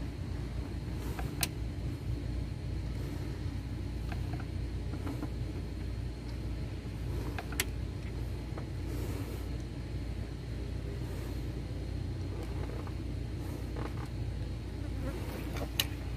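Steady low mechanical hum of workshop background, with three sharp isolated clicks: one about a second and a half in, one near the middle and one near the end.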